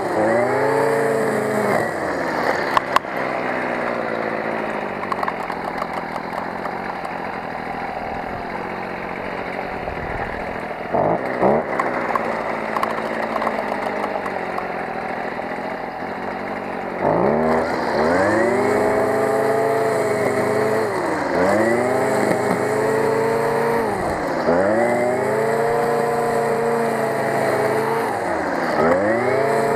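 Stihl FS 55 brush cutter's two-stroke engine running at high speed as the cutting head works through tall grass. In the second half its pitch repeatedly drops and climbs back, every two to three seconds.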